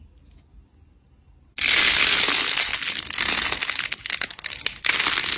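Slime being squeezed and pressed, a dense crackling and crinkling that starts suddenly about a second and a half in, with a short dip near the end.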